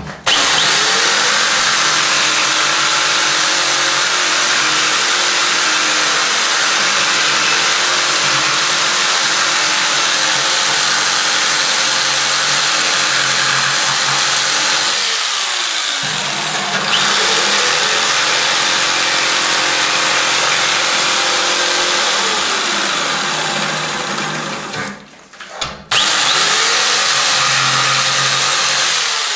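Electric jigsaw cutting notches in a white kitchen cupboard panel, the motor running steadily under the rasp of the reciprocating blade. The motor briefly slows and picks up again about halfway through, then stops for about a second near the end and starts again.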